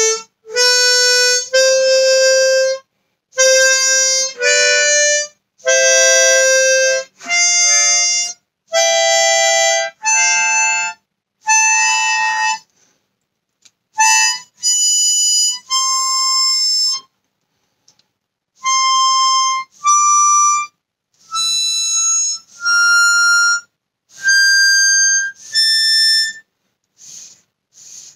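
Easttop T16-64 16-hole brass-comb chromatic harmonica in C, played one held note at a time with short gaps, climbing in pitch through the octaves. A few notes are sounded as two-note pairs. It ends with a couple of faint airy puffs.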